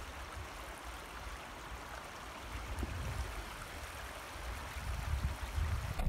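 Steady rush of flowing river water, with an uneven low rumble underneath.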